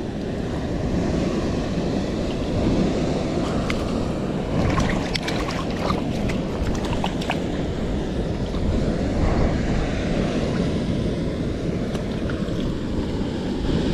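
Steady rush of a waterfall and running river water, with a few faint brief ticks in the middle.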